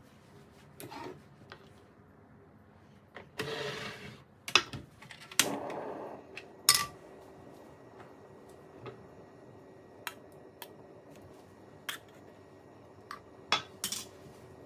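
Metal clicks and clatter of a frying pan being set on a portable gas stove and a raw sausage being moved into it, with a faint steady hum from about a third of the way in.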